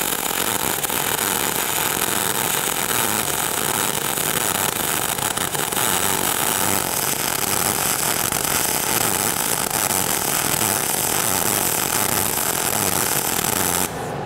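ESAB Rebel 235ic MIG welding arc laying a bead on carbon steel plate with 0.035-inch solid wire shielded by pure argon, set at 18 volts, between short-circuit and globular transfer. A loud, steady crackle that cuts off sharply near the end as the arc is broken.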